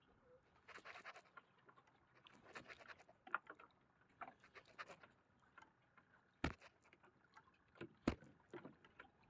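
Faint scattered clicks and rustling, with two sharp knocks in the second half, the second about a second and a half after the first.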